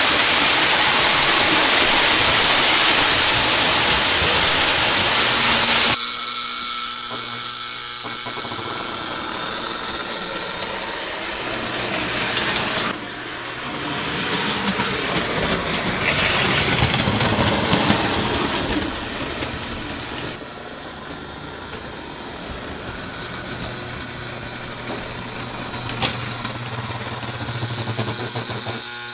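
O-gauge toy trains running on a three-rail layout: wheels rumbling on the track and the electric motors humming. The sound changes abruptly several times, and a loud steady hiss fills the first six seconds.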